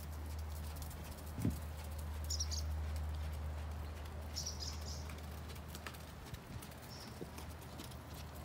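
A ridden horse's hoofbeats in a steady run of soft knocks, over a low steady rumble, with one louder thump about one and a half seconds in.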